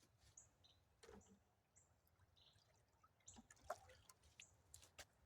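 Near silence, with faint scattered ticks and a few brief, high chirps.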